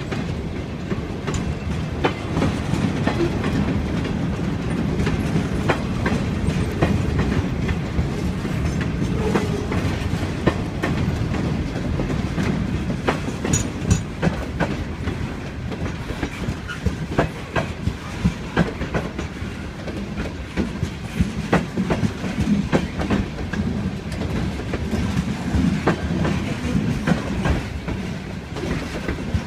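Freight cars rolling past on steel wheels: a steady low rumble with many irregular clicks and clacks as the wheels cross rail joints.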